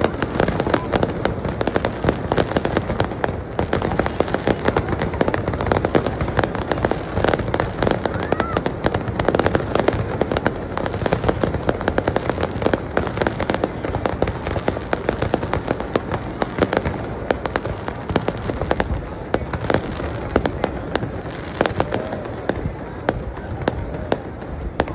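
Fireworks display going off continuously: a dense, unbroken barrage of bangs and crackling.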